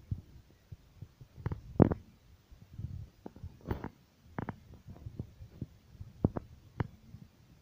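Handling noise from a handheld camera being moved about: irregular low thumps and knocks, the loudest one about two seconds in.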